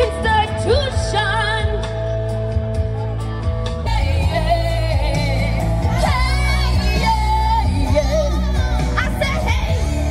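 Music with a singer: a voice holding wavering notes over a steady low bass accompaniment.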